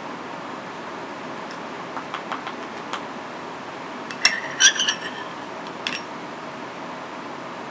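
Metal table knife clinking and scraping against a ceramic plate: a few light clicks, then a quick cluster of sharp clinks about four to five seconds in and one more near six seconds, over a steady background hiss.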